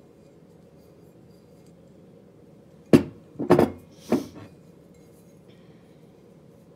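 Glazed ceramic mugs knocking on a wooden tabletop, with three sharp clunks close together about three to four seconds in as a mug is set down and another handled.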